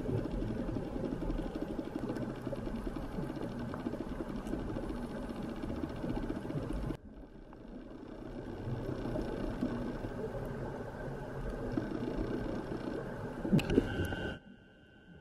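Muffled underwater sound of a scuba dive recorded through a camera housing: a steady mechanical hum over a rumbling, crackling noise. It dips about halfway through, and near the end a couple of sharp knocks come just before it drops away.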